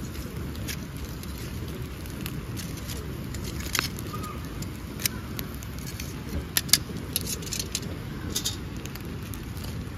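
Metal tongs clicking and scraping against a wire grill grate as whole fish are turned over a wood fire, a cluster of sharp clicks in the second half. The fire crackles faintly under a steady low rumble of background noise.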